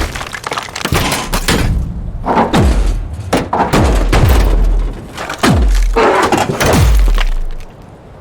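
Designed mechanical robot sound effects: a dense run of heavy metal clanks and hits, with three falling-pitch whines that each slide down into a deep low boom. It dies down near the end.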